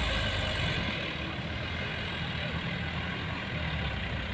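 Diesel engine of a loaded six-wheel coal dump truck running as the truck drives away, a steady low rumble, with an excavator's engine running alongside.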